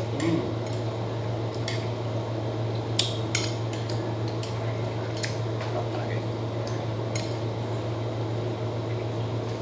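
Metal spoon and fork clinking and scraping against a plate during a meal, in irregular sharp clicks, over a steady low hum.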